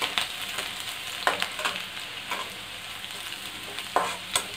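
Chopped garlic sizzling in hot oil in a metal kadai, with a metal ladle scraping and knocking against the pan in several short strokes as it is stirred.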